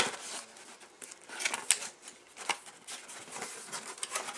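A cardboard box being opened by hand, its top flaps pulled open. There is a sharp snap right at the start, then scattered scrapes and rustles of cardboard.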